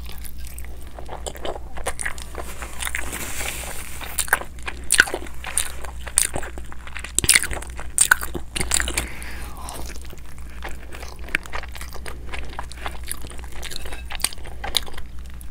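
Close-up eating sounds: biting into and chewing consommé-dipped birria tacos, with repeated crisp crunches from the fried tortillas.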